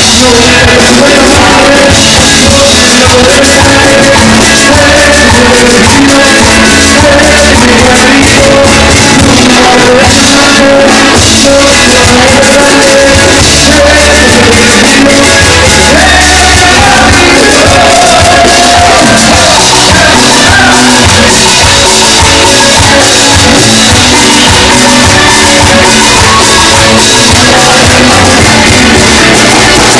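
Live cumbia band playing loudly, a male singer's voice over keyboard, drums and guitar.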